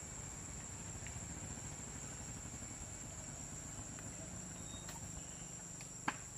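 Outdoor ambience: a steady high-pitched insect drone over a low background rumble, with one sharp click about six seconds in.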